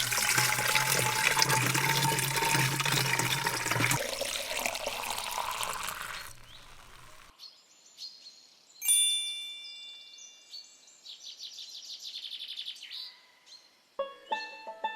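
Water gushing and splashing with a steady low hum that stops about four seconds in, the water fading away by about six seconds. Then a sharp chime-like sound with several ringing notes and chirps, and music starting near the end.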